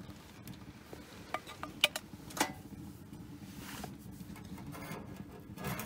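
A few sharp metallic clinks of a tin can against a small metal camping pot as canned spaghetti and meatballs is tipped into it, with the clinks bunched together about one and a half to two and a half seconds in. Softer scraping and handling noise follows.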